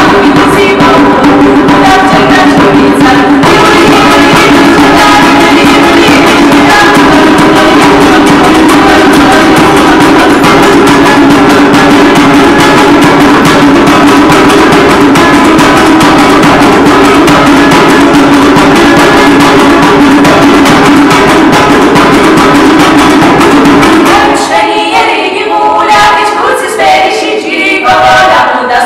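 A women's vocal ensemble singing Megrelian folk songs together over a steady low drone, accompanied by a panduri and a hand drum beaten in a fast rhythm. About 24 seconds in, the drum and the thick accompaniment drop away, leaving the voices more exposed.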